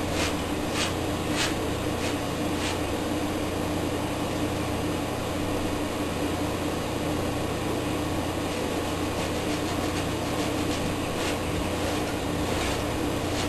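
A steady low hum and hiss of room noise, with a few faint short scratches in the first three seconds and again near the end from a long-handled brush stroking the oil-painted canvas.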